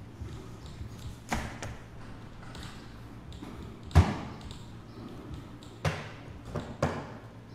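A handful of separate knocks and thuds over a low room hum, the loudest about four seconds in and a cluster of three near the end.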